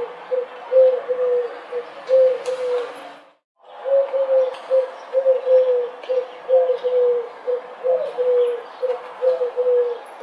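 Rock pigeons cooing: a steady run of short, low, slightly falling coos, about two a second, broken by a brief silence about three and a half seconds in.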